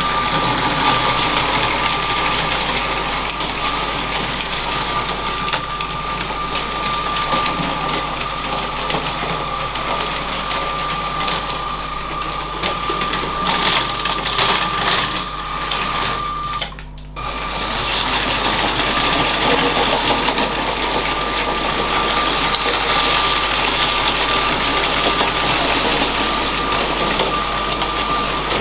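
LEGO train's small electric motor running with a steady high whine, the plastic wheels rattling and clicking along plastic track. The sound drops out for a moment a little past the middle.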